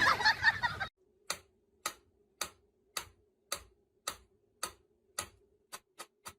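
A loud, noisy burst for about the first second, then a series of sharp, even ticks, about two a second over a faint steady hum. The ticks come faster and a little fainter near the end.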